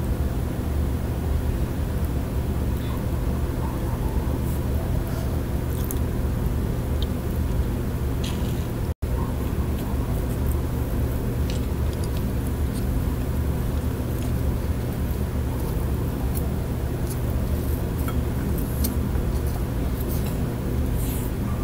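Steady low rumbling hum with faint, scattered small clicks over it. The sound cuts out for an instant about nine seconds in.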